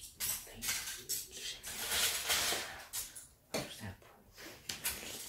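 Loose plastic LEGO bricks clattering and rattling as hands rummage through a heap of them, in irregular bursts of clicks and rustles with a quieter lull past the middle.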